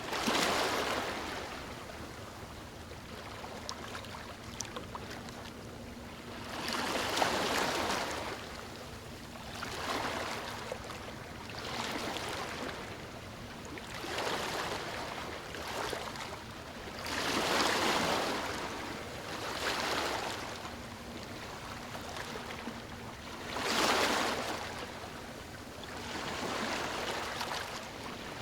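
Sea waves breaking and washing up the shore, each wave swelling and then fading, one every two to six seconds, with the biggest about a quarter of the way in, about two-thirds of the way in and near the end.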